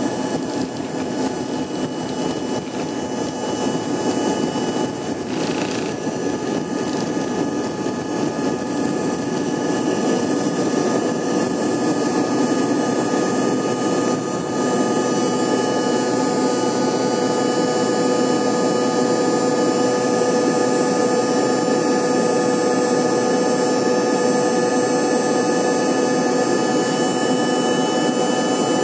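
Embraer 145's rear-mounted Rolls-Royce AE3007 turbofans at takeoff thrust, heard from a cabin seat right beside the engine: a steady roar with high whining tones through liftoff and the initial climb. It swells slightly over the first several seconds, then holds steady.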